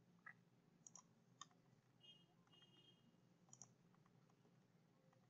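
Near silence with a handful of faint computer mouse clicks, some in quick pairs.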